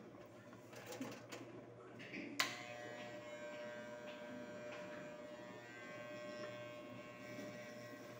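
Corded electric hair clippers click on about two and a half seconds in, then run with a steady buzz as they are brought to the man's head for a #0 clipper shave.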